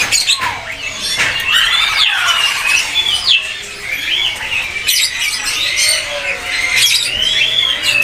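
Many caged songbirds chirping and whistling at once, their short rising and falling calls overlapping without a pause, over a faint low steady hum.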